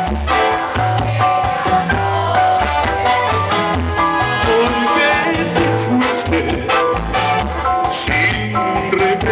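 Live Latin pop band playing an instrumental passage between sung lines: bass guitar holding low notes under a drum kit with cymbals, keyboards and guitar.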